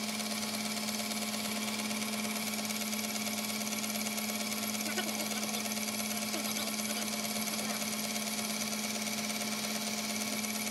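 1953 Boxford model A metal lathe running with its chuck spinning: a steady mechanical hum with one strong low drone, unchanging in level.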